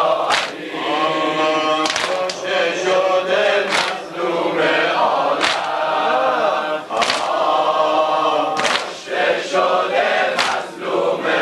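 A large crowd of men chanting a Shia mourning lament together, with sharp collective chest-beating slaps (sineh-zani) landing in unison about every one and a half seconds.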